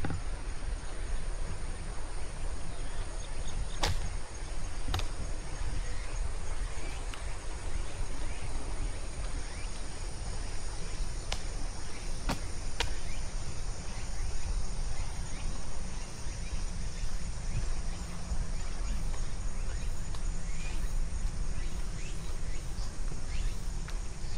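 Steady chorus of insects trilling, with a low rumble underneath and a few sharp clicks here and there.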